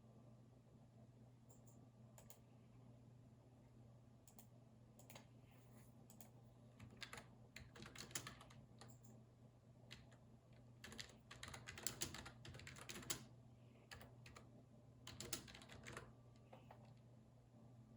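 Typing on a computer keyboard: a few scattered single clicks at first, then several short runs of quick keystrokes in the second half, over a faint steady low hum.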